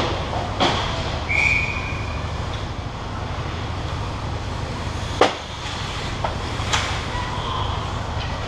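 Ice hockey rink sound: a steady low hum with several sharp cracks of sticks and puck hitting the boards and glass, the loudest about five seconds in, and a short referee's whistle blast a little over a second in.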